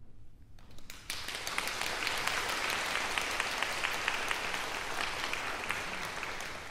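Audience applauding: a few claps start about half a second in and swell into full, steady applause about a second in.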